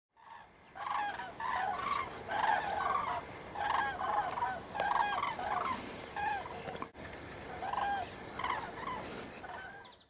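A flock of common cranes calling in flight: many loud, overlapping trumpeting calls, one over another, starting about a second in.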